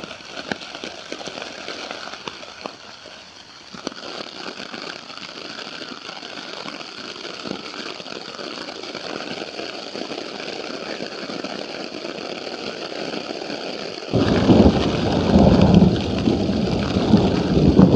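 Rain pattering steadily on a tent's flysheet, heard from inside the tent as a hiss full of fine drop ticks. About fourteen seconds in, a loud rolling rumble of thunder breaks in and swells unevenly over the rain.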